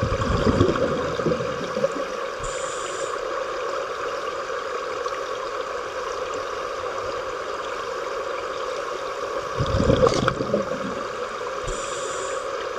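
Underwater, a scuba diver's regulator exhaling in bursts of rumbling bubbles, once at the start and again about ten seconds in, over a steady underwater hum.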